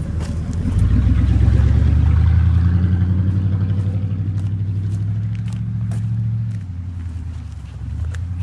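Chevy Suburban engine pulling hard under steady throttle: a loud, steady low drone that builds about a second in and drops off about six and a half seconds in, with scattered knocks and rattles.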